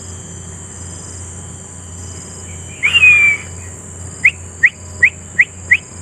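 A bird calling: one longer whistled note that falls slightly, then five short, sharp rising notes in quick succession, a little over two a second.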